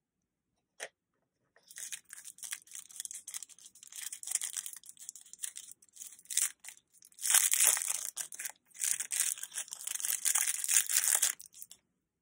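Packaging bag crinkling and tearing as it is handled and opened, in uneven rustles for about ten seconds, loudest in the second half. A single click sounds just under a second in.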